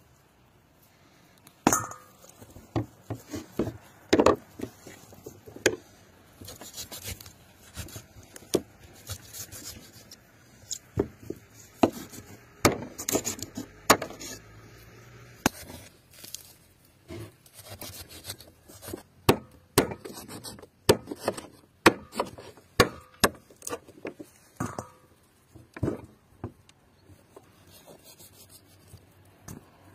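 A kitchen knife jointing a raw duck on a cutting board: irregular sharp knocks of the blade against the board and cuts through skin and joints, busiest in the middle.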